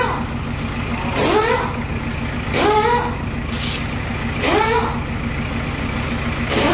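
A truck's diesel engine running, with a rising whine and a rush of hiss that repeat every couple of seconds.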